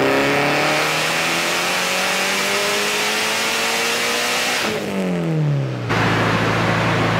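Turbocharged 2.2-litre four-cylinder of a Mitsubishi Lancer Evolution IX RS, fitted with a G35-900 turbo, making a full-throttle dyno pull: the revs climb steadily for about four and a half seconds, then the throttle closes and the revs fall quickly before settling to a steady lower speed.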